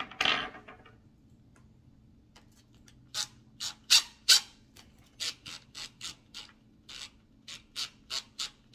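Hand screwdriver tightening a screw into a Traxxas Slash's rear axle assembly: a brief rustle, then from about three seconds in a run of sharp clicks, roughly three a second, as the driver ratchets the screw down.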